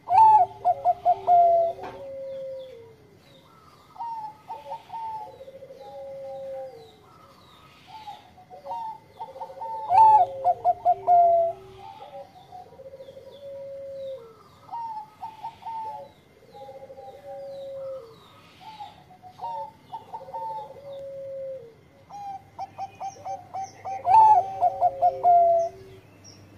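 Zebra dove (Bangkok perkutut) singing its cooing song: loud phrases of quick staccato notes about every ten seconds, with softer coos in between.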